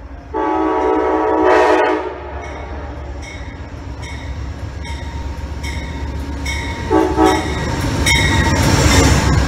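Diesel locomotive sounding its multi-chime air horn: one long blast, then two short blasts about five seconds later. The engine rumbles steadily, and the noise swells as the locomotive passes close by near the end.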